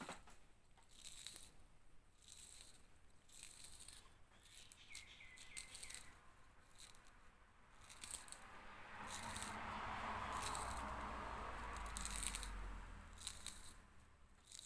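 Small hand-work clicks, snips and scraping as copper winding wire is pulled and cut off a microwave fan motor, with a longer stretch of rasping noise in the second half.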